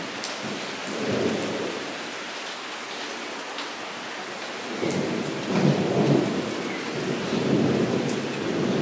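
Rain falling steadily into a shallow puddle, with scattered sharp drop hits and a deeper, louder rush that swells about a second in and again from about five seconds on.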